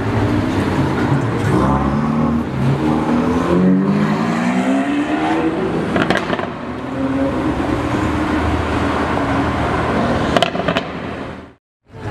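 Ferrari 488 Spider's twin-turbo V8 and Lamborghini Aventador S's V12 accelerating past one after the other, the engine notes rising in pitch as they pull away. A couple of sharp pops come about six and ten seconds in.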